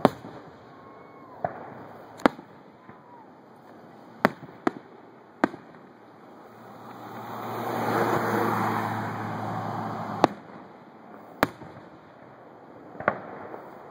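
Aerial firework shells bursting overhead, about ten sharp bangs at irregular intervals, the loudest at the start and about ten seconds in. In the middle a broad rush swells up and fades over about four seconds, with a steady low hum under it.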